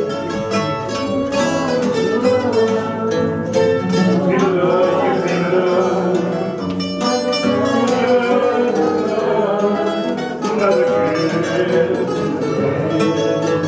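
Portuguese guitar and fado viola (classical guitar) playing an instrumental fado passage, with bright plucked melody notes over strummed accompaniment.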